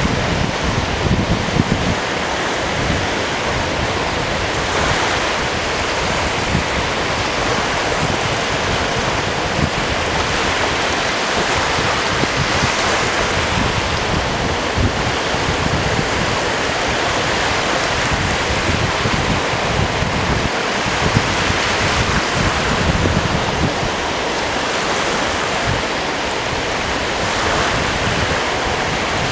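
Steady rush of wind and lake surf, with uneven low gusts of wind hitting the microphone.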